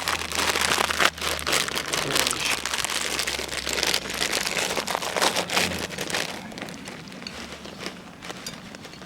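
Food sizzling in a hot pan, a dense crackle of spitting fat that eases off about six seconds in.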